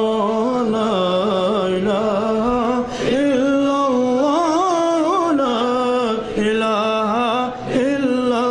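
A man's voice singing an Urdu hamd (devotional hymn) solo in a slow, ornamented style, drawing out long notes with wavering pitch, with brief breaks about three, six and seven and a half seconds in.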